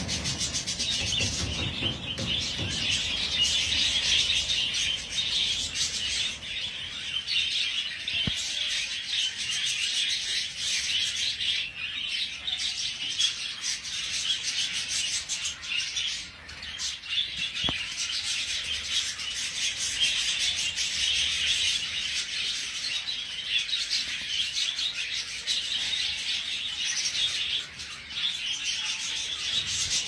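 A flock of budgerigars chattering together without pause, a steady high-pitched twittering of many birds at once.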